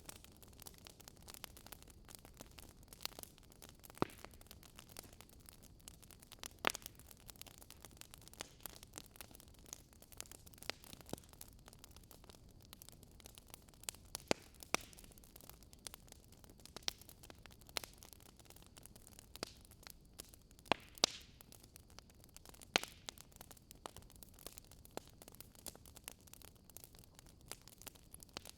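Fireplace crackling: a steady soft hiss with irregular sharp pops and snaps, some much louder than the others.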